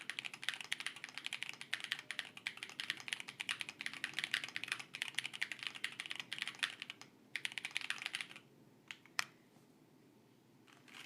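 Fast typing on an Akko Alice Pro Plus mechanical keyboard with stock OwLab Tungsten switches, Cherry-profile keycaps and tape-and-foam mods: a dense stream of keystrokes that stops after about eight seconds, followed by a couple of single key presses, a brief quiet, and typing starting again at the very end.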